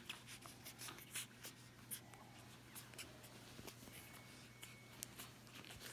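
Faint handling noise of hands and newborn puppies moving on a fleece blanket: soft scratchy rustling with scattered small clicks over a low steady hum.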